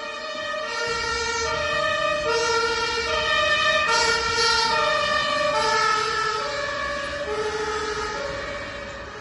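Toy ambulance's electronic siren, alternating steadily between two notes, growing louder towards the middle and fading near the end, with a low rumble beneath.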